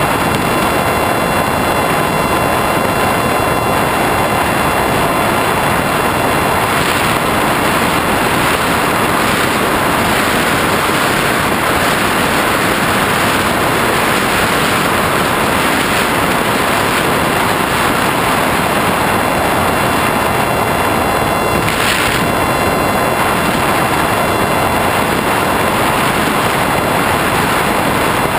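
Red Eagle FPV flying wing in flight, heard from on board: a steady rush of propeller and wind noise with a faint, even motor whine. About three-quarters through there is a brief louder rush.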